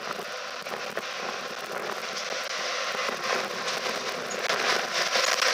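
A Class 91 electric locomotive and its Mk4 coaches rolling along the track, a steady rushing wheel-on-rail noise with scattered crackling clicks that grows louder as the locomotive draws close.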